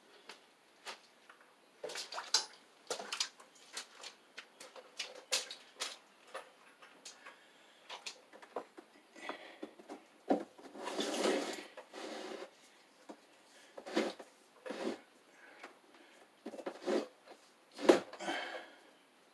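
Electrical cable being fed and pulled through holes in wooden floor joists overhead: irregular clicks, taps and knocks of the cable and hands against the wood, with a longer rubbing sound about ten seconds in.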